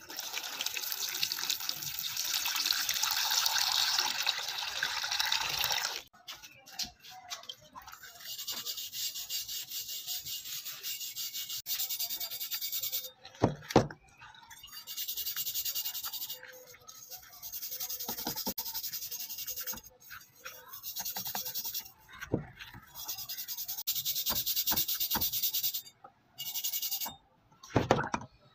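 Water pouring into a plastic tub over a rusty axe head for about six seconds. Then a stiff brush scrubs the rust off the axe head in the water, in several bursts of a few seconds each, with a few knocks in between.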